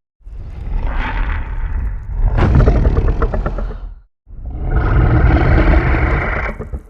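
Two King Ghidorah creature sound effects, each a deep, rasping rumble. The first lasts about four seconds and has a rattling, pulsing stretch near its middle. The second starts a moment after the first ends, carries a steadier tone, and cuts off at the end.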